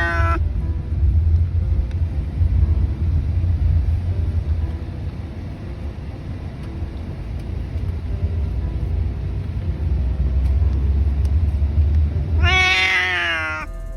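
A pet cat giving one drawn-out meow near the end, over a steady low rumble.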